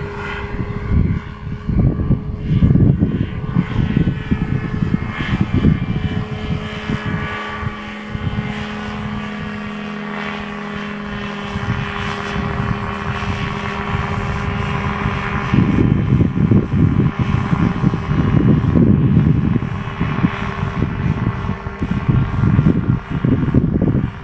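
Flex-wing ultralight aircraft's engine and propeller droning steadily as it flies overhead. Irregular low rumbling comes and goes under the drone, strongest about a third and two-thirds of the way in.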